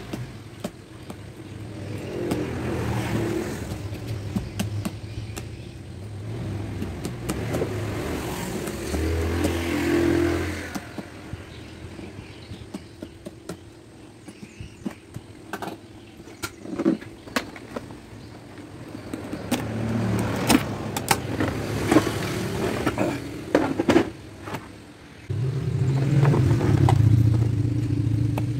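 Motor vehicles passing, a low engine hum that swells and fades three times. Between the passes come sharp clicks and rattles of a suitcase zipper being worked by hand.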